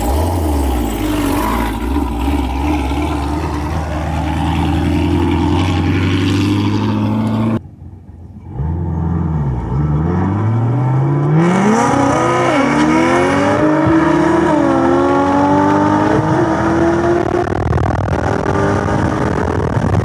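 High-performance car engine accelerating hard through the gears, its pitch climbing, dropping back at each upshift and climbing again. Before that comes a stretch of steadier engine sound, which breaks off suddenly about seven and a half seconds in.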